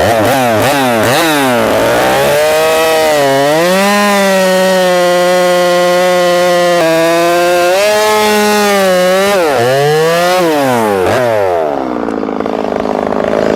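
Two-stroke chainsaw cutting through a log: the engine revs up and holds a steady pitch under load through the middle, then its revs dip and climb again before easing off near the end.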